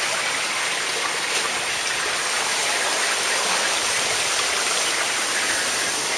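Steady rush of running, bubbling water in aerated live-fish tanks.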